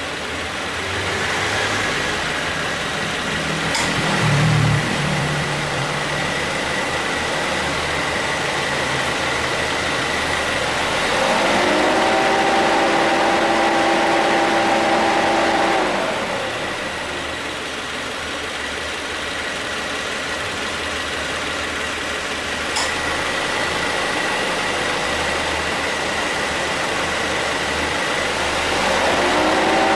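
2017 Subaru Forester engine idling steadily with the air conditioning on. About 11 s in, and again near the end, a louder steady hum of several tones comes in for a few seconds as the AC compressor cycles on. It cycles without abnormal noise now that its refrigerant oil has been changed.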